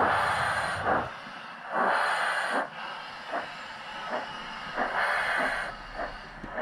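Sound-fitted 7mm-scale model steam locomotive working slowly: three long, hissing exhaust chuffs with fainter short beats between them.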